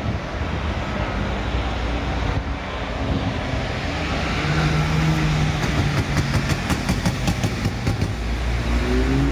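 Street traffic: city buses and cars driving past, with a steady engine hum in the middle and an engine note rising in pitch near the end as a vehicle pulls away.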